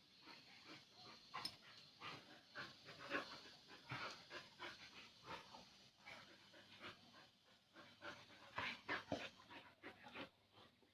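Faint, irregular panting and huffing of dogs at play, with soft knocks scattered among the breaths.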